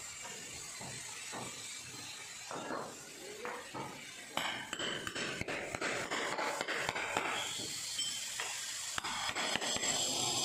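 Hammer striking an axe wedged under the edge of a floor tile: a quick run of sharp metallic knocks from about four seconds in, with scattered softer taps before. The blows drive the blade under the tile to pry it up from its bed without cracking it.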